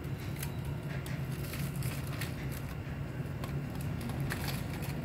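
Cats eating dry kibble from a bowl: scattered short crunches and clicks of chewing over a steady low hum.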